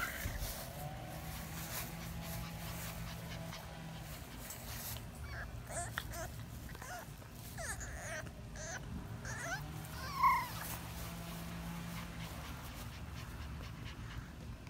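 French bulldog puppy whimpering: a run of short, high whines in the middle, with one louder whine about ten seconds in.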